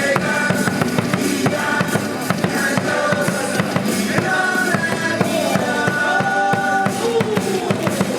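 Loud cheer music with a driving drum-kit beat, bass drum and snare hits coming regularly under held melody notes.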